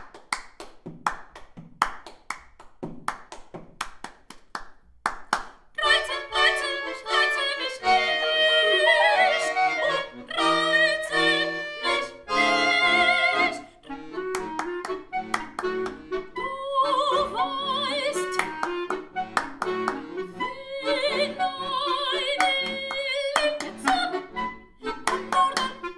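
Contemporary chamber music for voice, bass clarinet and accordion. It opens with about six seconds of scattered, irregular hand claps and taps. Then held tones from the accordion and bass clarinet come in, with a woman's voice singing with vibrato over them.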